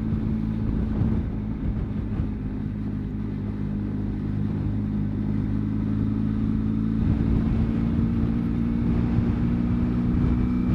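Benelli TRK 502X parallel-twin motorcycle engine running at a steady cruise, with wind noise on the microphone; it gets a little louder in the second half.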